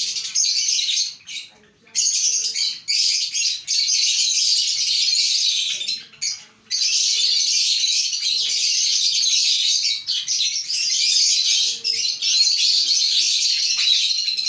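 Many small birds chirping all at once in a dense, high-pitched chatter that comes in long spells broken by brief pauses.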